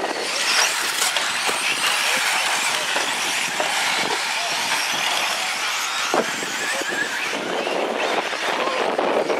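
Radio-controlled short course 4x4 trucks racing on a dirt track, their motors whining high and wavering as they speed up and slow down through the corners.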